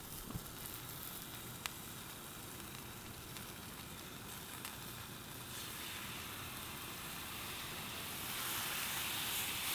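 Burger patties sizzling as they fry: a steady hiss with a few faint pops, growing louder about eight seconds in.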